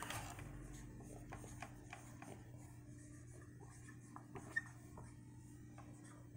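Dry-erase marker writing numbers on a whiteboard: a run of short, faint strokes with a few light clicks, over a steady low hum.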